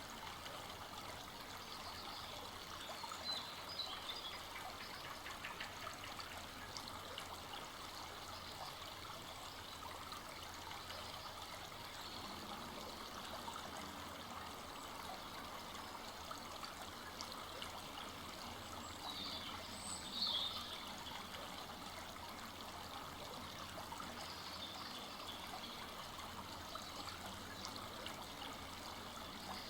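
Full-flowing forest stream running steadily, water trickling and babbling over the bed, with two brief louder splashes about three seconds in and again about twenty seconds in.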